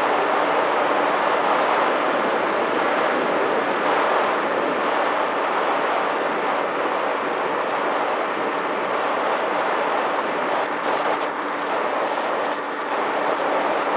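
Steady rush of air over the onboard camera of a Volantex Ranger 1600 RC plane in flight, with a faint steady hum from its electric motor and propeller. The rush dips briefly twice near the end.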